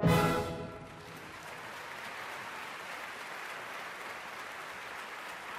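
A symphony orchestra's final chord, dying away within the first second, then a theatre audience applauding steadily.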